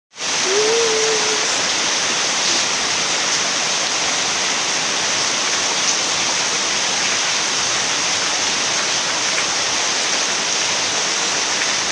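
Steady heavy rain, an even hiss of falling water. A brief faint wavering tone is heard about half a second in.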